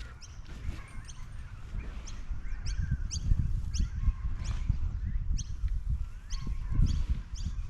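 Birds chirping over and over in short, high, down-sweeping calls about once a second, over low rustling and soft thumps of hands digging through loose garden soil.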